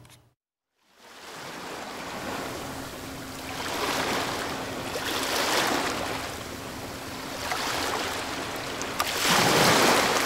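Ocean waves surging and ebbing, each swell a second or two long, after a moment of silence at the start.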